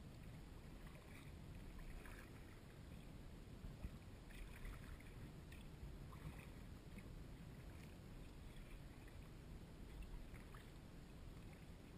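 Faint dips and drips of a kayak paddle in calm water, as short scattered splashes over a low, steady rumble.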